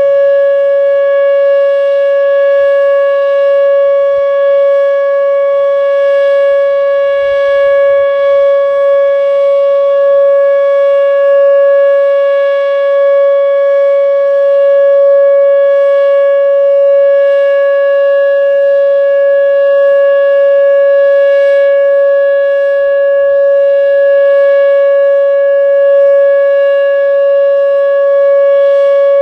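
Whelen WPS-2807 electronic outdoor warning siren sounding its steady Alert tone: one loud, unwavering pitch around 560 Hz with overtones, held without a break. This is the continuous alert signal used for tornado warnings, here run as a scheduled test.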